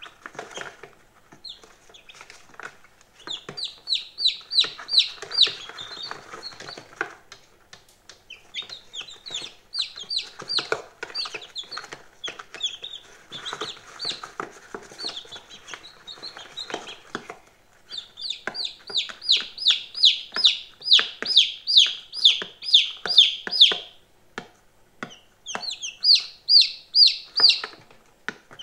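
Day-old chicken chicks peeping: high, short peeps that each slide downward, several a second, in runs of a few seconds with short lulls between. Soft ticks and rustles sound beneath them.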